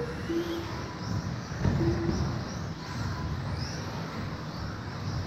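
Radio-controlled 2WD off-road buggies racing on an indoor carpet track, motors whining up and down in pitch as they accelerate and brake, over a low rumble of tyres and knocks from the cars. Two short steady beeps sound early on and near the middle.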